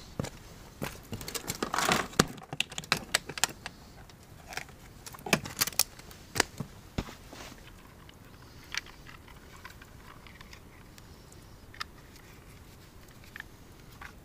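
Clicks and light rattles from handling fishing gear as a small digital hanging scale is taken out and readied to weigh a fish: a busy run of clicks over the first six or seven seconds, then a few single clicks.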